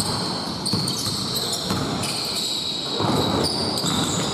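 Basketball game sounds in a gym: the ball bouncing on the hardwood court with repeated low thuds, and sneakers squeaking against the floor as players move.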